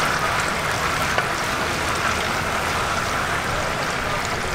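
Hot oil bubbling and sizzling around battered chicken pieces deep-frying in a large kettle: a steady hiss with small crackles.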